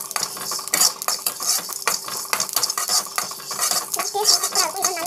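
A spatula scraping and stirring whole black peppercorns and seeds roasting in a metal pan. The hard spices rattle and skitter across the metal in quick, uneven scrapes.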